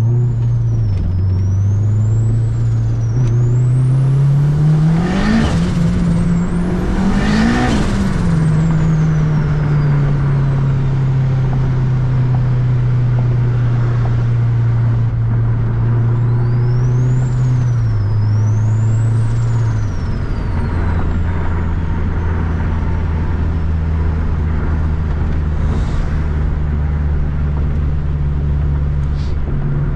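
Turbocharged Honda K-series engine pulling hard inside a tunnel: revs climb steeply twice, with a gear change between, about five and seven seconds in. A high turbo whine rises and falls with the throttle. The engine then cruises steadily, drops to a lower tone about twenty seconds in, and a second pair of whine sweeps comes just before that.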